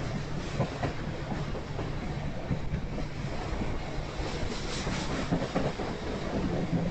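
Rail flatcars of a ribbon rail train, loaded with long welded rail, rolling past with a steady rumble and wheels clacking over the track.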